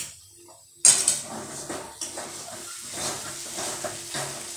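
A metal spoon clanks sharply against an aluminium kadhai about a second in, then scrapes and stirs stuffed okra frying in oil, with a steady sizzle under the strokes.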